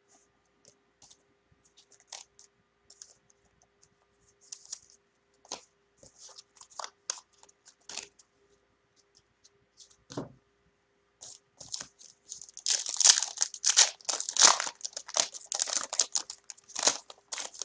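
Foil wrapper of a trading-card pack crinkling with scattered small crackles and clicks as it is handled, then torn open with a dense burst of crinkling in the last third.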